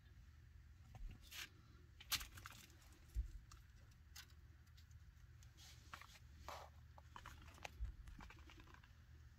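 Faint scattered scuffs and light clicks, a baby chinchilla moving about in a plastic ornamental sleigh, over a low steady hum.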